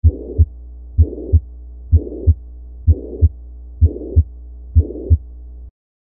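Recorded heart sounds of mitral regurgitation. There are six beats at about one a second, each a pair of low thuds (S1 and S2), with a rushing systolic murmur filling the gap between them. The recording cuts off suddenly near the end.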